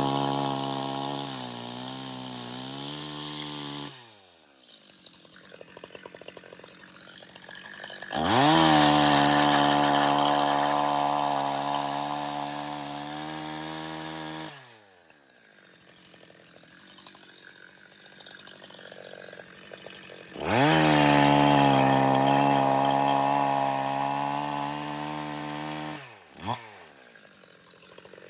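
Two-stroke chainsaw engine revving in three runs of about six seconds. Each run climbs quickly to high revs, holds there, and cuts off abruptly, with quieter gaps between. A short rev rises and falls near the end.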